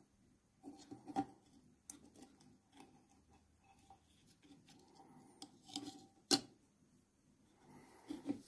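Faint handling of an LED lamp board being set onto a metal heatsink housing coated with silicone thermal paste: soft rubbing with a few light clicks and taps, the sharpest about six seconds in.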